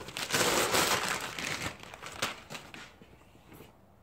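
Rustling and scraping of handling noise against the microphone of a handheld phone or camera, loudest in the first second and a half, then dying away into a few light clicks.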